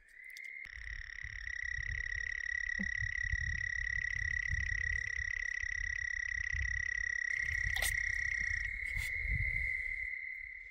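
A frog calls in one long, steady, high trill, with a second trill overlapping it for most of its length. A faint low rumble runs underneath.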